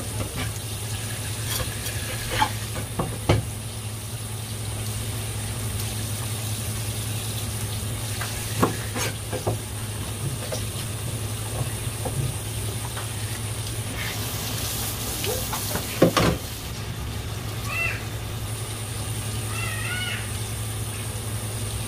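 Tap water running steadily over a plastic cutting board and a cutlassfish being rinsed, with a few sharp knocks and taps on the board, the loudest about three-quarters of the way through. A steady low hum runs underneath, and two short high squeaks come near the end.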